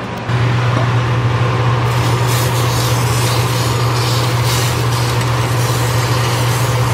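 Hot oil sizzling and bubbling as it is poured over minced green onion and ginger for ginger-scallion sauce, with a steady low hum underneath that starts just after the beginning and is the loudest sound.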